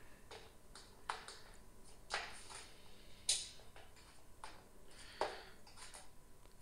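Faint scattered clicks and light taps of small handmade figurines being handled and set down on a slatted tabletop, roughly one a second, the loudest a little past three seconds in.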